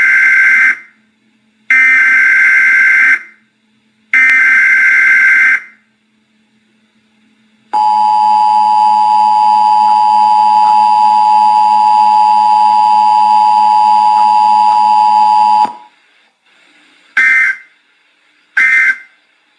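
Emergency Alert System broadcast tones. Three screeching digital header bursts come first, then the two-tone attention signal held for about eight seconds. Near the end come two short end-of-message bursts.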